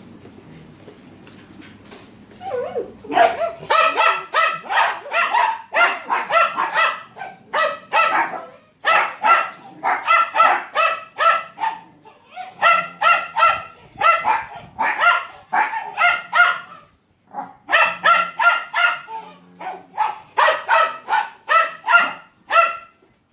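Dachshunds barking angrily at a vacuum cleaner: rapid, high-pitched barks at about three a second, starting about two and a half seconds in and going on in long runs with brief pauses.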